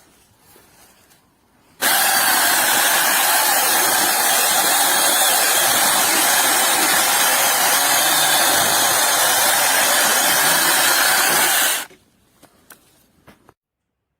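Goldsea 6-inch cordless brushless mini chainsaw running at full speed for about ten seconds, a loud, dense hiss and whine that starts and stops abruptly.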